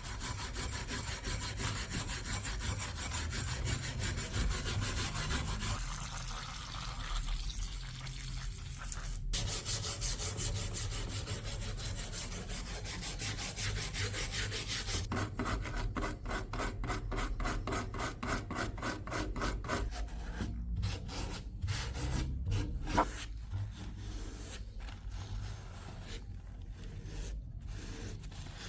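Repeated back-and-forth rubbing strokes of hand abrasion against a rusted steel sword blade, scrubbing off rust. The strokes are fast and even at first, break off suddenly about nine seconds in, then resume and grow slower with short pauses between them.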